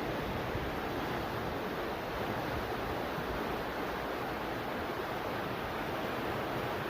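Steady rush of moving water mixed with wind noise: an even hiss with no pauses or swells.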